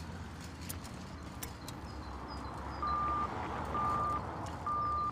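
Cash machine beeping three times: short, steady beeps about a second apart, starting a little past halfway through, as the machine keeps the bank card. A steady low street hum runs underneath.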